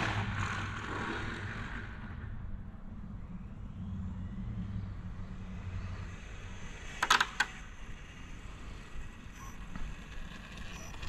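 Electric 1/10-scale RC drag car's motor whine fading away over the first couple of seconds as it finishes a pass. Then a low steady background, with a quick cluster of sharp clicks about seven seconds in.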